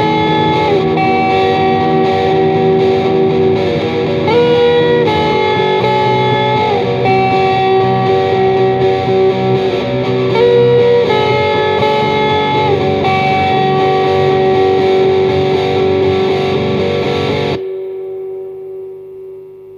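Heavily distorted electric guitar through Boss MT-2 Metal Zone and SD-1 Super OverDrive pedals, playing a looped riff under a lead line with sliding notes. About 17 seconds in the loop stops and a single note is left ringing and fading.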